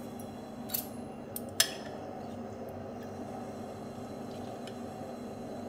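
A metal spoon clinks against a glass bowl three times in the first two seconds, the last the loudest, while boiled raw-mango pulp is squeezed and scraped off the stones. A steady low hum runs underneath.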